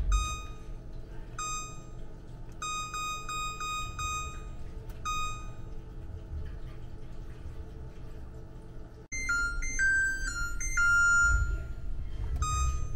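Electric range control panel beeping as its keys are pressed to set a cook timer, with a quick run of about six beeps as the minutes are stepped up. About nine seconds in, the oven plays its short multi-note end-of-timer chime, followed by one more key beep as the timer is cleared.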